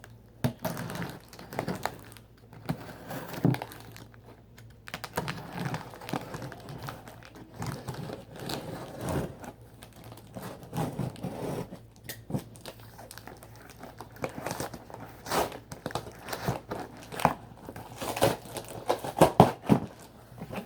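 A package being unpacked by hand: irregular crinkling, rustling and tearing of wrapping, with scattered clicks and knocks. It gets busier and louder near the end.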